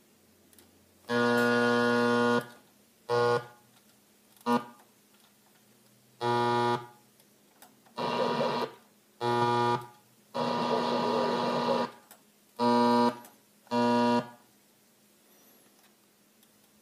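Stereo tuner seeking through stations: about nine short bursts of a steady buzzing tone, some mixed with static, come from the speakers, each switching on and off abruptly with muted gaps between.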